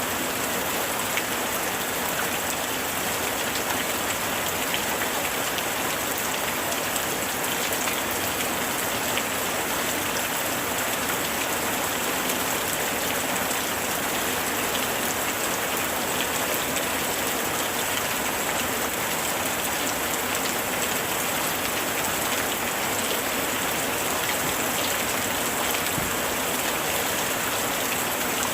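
Heavy rain falling steadily, an even hiss sprinkled with the ticks of individual drops.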